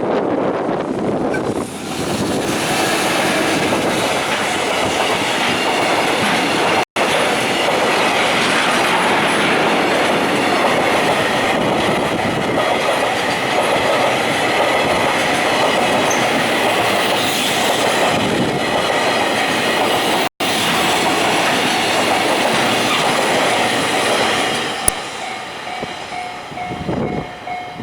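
Freight train of tank wagons rolling past, wheels clattering over the rail joints in a steady, loud run of noise. Near the end the train noise drops away and a level-crossing warning bell is left ringing with a steady tone.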